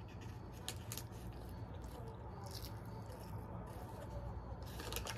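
A person chewing food, with soft, irregular wet mouth clicks over a steady low hum.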